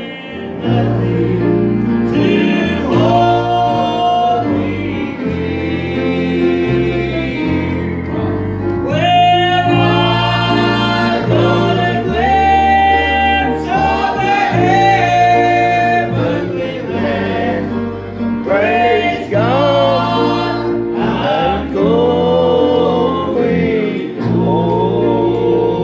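A small group of men singing a gospel song together, with instrumental accompaniment carrying held bass notes that change every second or two.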